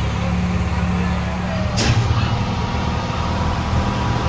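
Diesel locomotive engine running with a steady low drone, heard from inside an open-windowed passenger carriage, with one sharp clunk about two seconds in, after which the engine note shifts.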